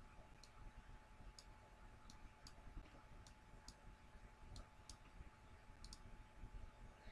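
Faint computer mouse clicks, about ten short sharp ones spread unevenly over six seconds, with a pair near the end.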